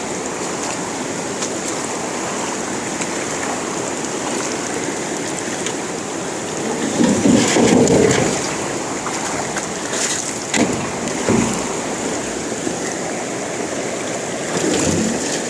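Flooded creek in spate, its water rushing steadily, with a few brief louder surges about seven and ten seconds in.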